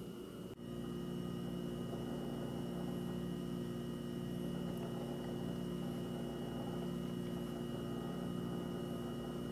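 Steady electrical hum with a faint high whine above it; it steps up in level about half a second in.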